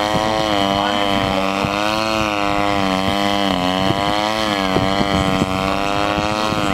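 Gasoline engine and propeller of a large radio-controlled aerobatic model airplane holding a nose-up hover, running steadily with its pitch wavering slightly down and up every few seconds.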